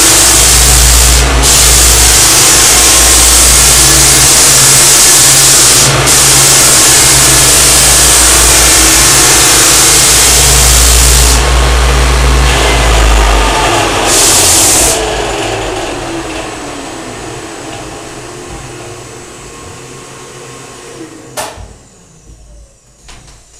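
Continuous-belt floor sander with 60-grit paper and its dust-containment vacuum running loud and steady while resanding a hardwood floor, then switched off about two thirds through and winding down over several seconds with a falling pitch. A sharp click comes near the end.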